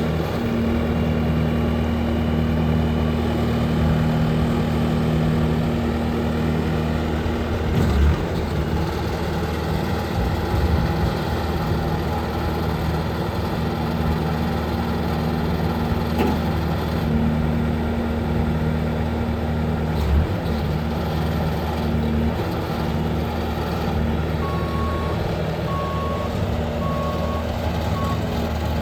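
2017 Bobcat S550 skid-steer loader's diesel engine running steadily, with a few knocks from the machine about a third and two-thirds of the way through. Near the end its reversing alarm beeps four times, about a second apart, as it backs up.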